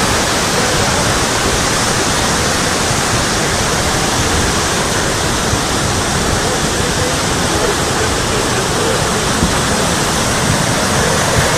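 Flash-flood torrent of muddy water rushing and churning: a loud, steady rush of water with no let-up.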